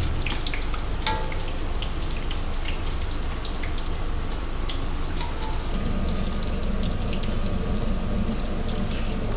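Battered chicken rolls deep-frying in a wok of hot oil, making a steady dense sizzle with many small pops and crackles.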